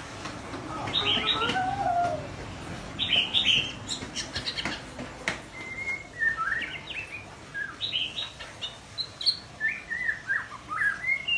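Young white-rumped shama practising its song: a rambling string of short whistled and chirping phrases, with a few sharp clicks about four to five seconds in.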